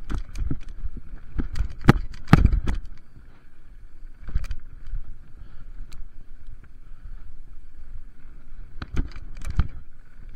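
Mountain bike running fast down a rough dirt trail: a steady rumble of the tyres on the ground, broken by sharp knocks and clatter as the bike hits bumps, loudest about two seconds in and again near the end.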